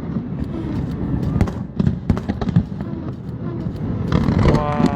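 Aerial fireworks going off: a run of sharp bangs and crackles at uneven intervals over a steady low rumble of bursts.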